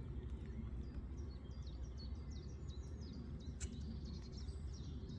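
Quick run of short, high chirps from small birds over a steady low background rumble, with one sharp click partway through.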